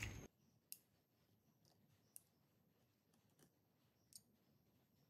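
Faint, sharp clicks of a metal spoon against a steel bowl and ceramic plate as diced boiled potato is spooned into puris, a few clicks about a second apart. A louder background noise cuts off suddenly just after the start.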